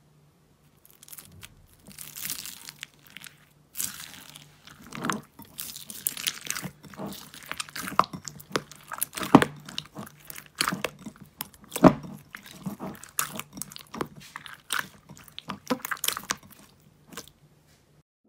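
Slime being squeezed and worked by hand: an irregular run of crackles, clicks and pops that stops shortly before the end.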